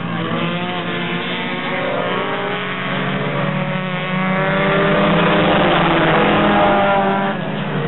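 Several stock-car engines running hard as a pack of race cars laps the oval, their pitches rising and falling. One car passes close, and the sound is loudest from about four to seven seconds in.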